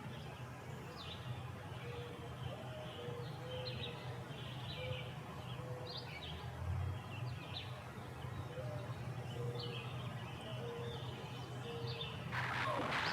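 Dawn birdsong: several birds giving short repeated chirps and calls, with a short lower note repeating every second or so, over a steady low hum. Near the end a much louder burst of noise sets in suddenly.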